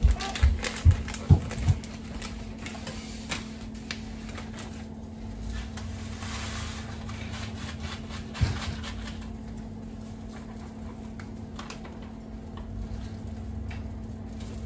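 Dry yellow rice mix poured from its bag into a pot of water, a soft hiss of grains about six seconds in. A few sharp knocks near the start and one more a couple of seconds after the pour.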